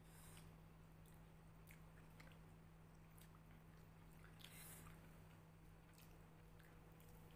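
Faint eating sounds: chewing, and fingers mixing and squishing rice on a glass plate, heard as scattered small clicks and one brief soft rustle about halfway through, over a steady low hum.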